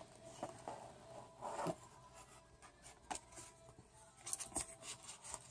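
Faint rustling and light taps of paper being handled: a book's pages, folded poster and cards moved about by hand.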